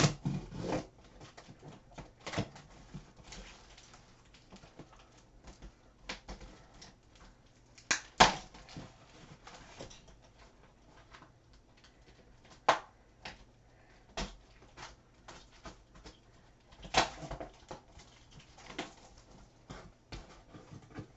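Cardboard shipping box being opened by hand: a blade cutting through the packing tape, then the flaps pulled and handled, giving irregular scrapes, rustles and clicks with a few sharper knocks, the loudest about eight, thirteen and seventeen seconds in.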